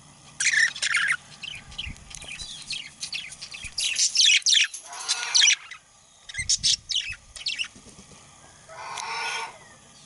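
Male budgerigar chirping and warbling in quick bursts of high chirps, busiest from about four to five and a half seconds in. A rougher, lower sound follows near the end.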